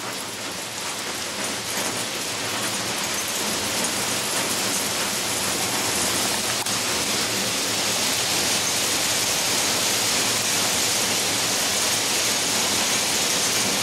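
Torrential rain pouring down in a steady hiss, growing louder over the first few seconds and then holding.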